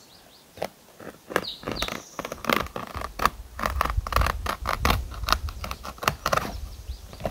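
Knife scoring and cutting through a sheet of freshly peeled birch bark: an irregular run of dry crackling scrapes and clicks, sparse at first and growing dense after about two seconds.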